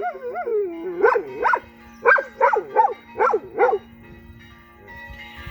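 Dog howling along to ringing church bells: a quick run of short howls, each rising and falling in pitch, over the steady hum of the bells. The howling stops about four seconds in while the bells ring on.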